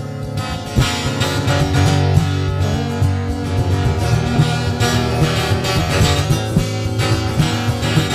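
Background music: an acoustic guitar instrumental passage with strummed and plucked chords, no singing.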